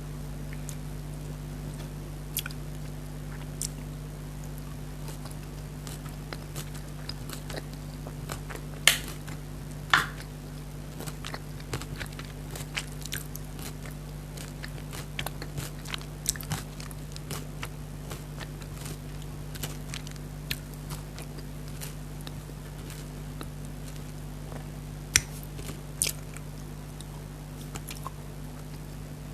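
Close-miked chewing of soft jelly candy: wet mouth clicks and smacks from biting and chewing, irregular throughout, with a few louder clicks about nine seconds in and again near the end. A steady low hum runs underneath.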